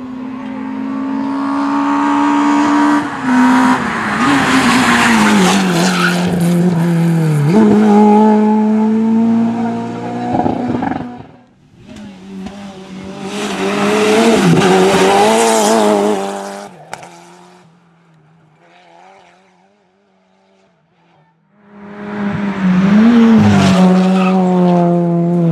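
Rally cars being driven hard through a bend one after another, their engines revving high through the gears and dropping in pitch as they lift off and brake. After a short lull, the next car, a Suzuki Swift cup car, comes in near the end with its engine rising again.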